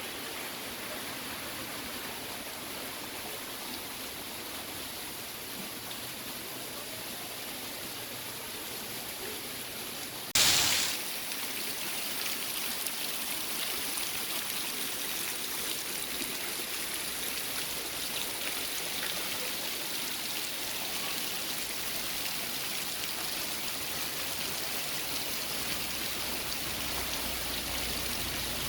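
Heavy rain pouring steadily. About ten seconds in there is a short loud burst of noise, after which the rain sounds slightly louder and hissier.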